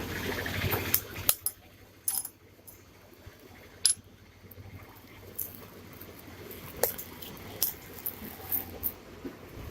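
Hands opening a smartphone's retail box: scattered sharp clicks and taps of packaging being handled, after a rustling noise that stops about a second in.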